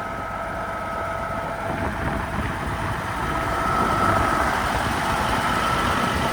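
Heavy truck engine idling steadily, with a thin steady whine over the low rumble that grows a little louder about four seconds in.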